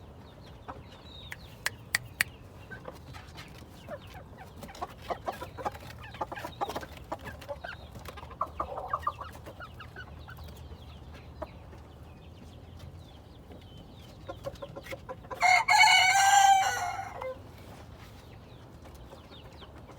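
Ko Shamo bantam chickens clucking on and off, with a bantam rooster crowing loudly once for about two seconds near the end. A few sharp clicks come about two seconds in.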